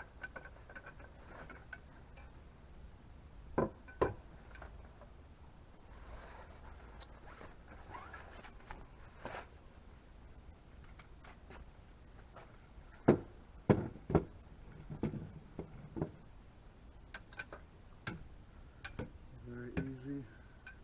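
Crickets chirring steadily, with scattered knocks and clatters as the parts of a folding camp table are handled and fitted together; the loudest knocks come in a quick cluster about two-thirds of the way through.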